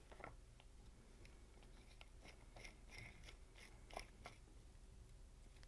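Near silence with faint scattered clicks and rubbing as gloved hands turn the impeller down onto a dishwasher pump motor's shaft; the loudest click comes about four seconds in.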